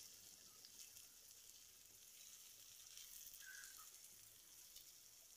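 Faint sizzling of stuffed brinjals frying in a little oil in a kadai, a steady soft hiss with tiny crackles.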